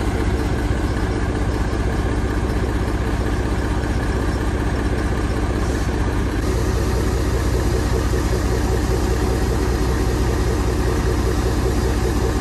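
Diesel engine of a heavy recovery crane truck idling steadily, a constant low hum.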